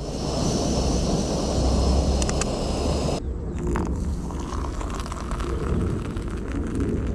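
Wind noise on the microphone, cut off abruptly about three seconds in by water pouring from a kettle into a stainless steel camping cup of instant coffee powder, splashing as the cup fills.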